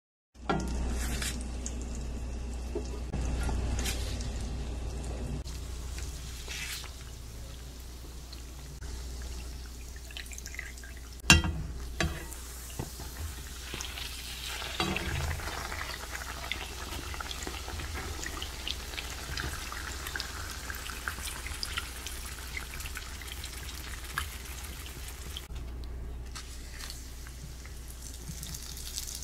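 Donuts deep-frying in canola oil at about 170 °C, the oil sizzling and bubbling steadily around the dough. One sharp knock about eleven seconds in, with a few lighter clicks soon after, as the donuts are handled in the pan.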